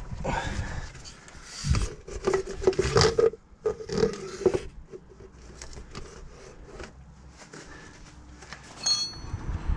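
Rubber steering rack boot on a VW Crafter being worked back over the inner track rod end by gloved hands: irregular rubbing, scraping and sharp clicks, busiest in the first half, then quieter handling.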